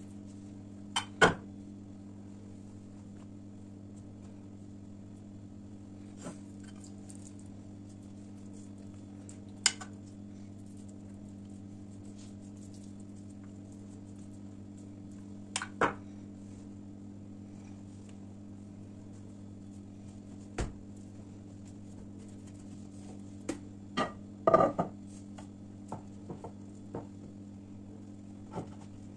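Scattered clicks and knocks of kitchen utensils and dishes on a countertop, with a cluster of knocks about 24 seconds in as a glass plate is handled, over a steady low hum.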